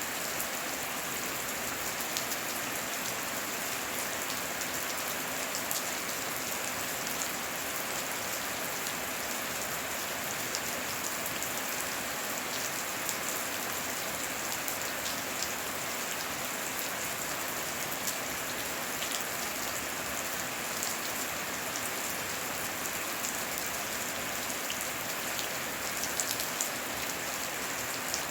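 Heavy rain falling steadily, with many separate drop hits ticking through the hiss.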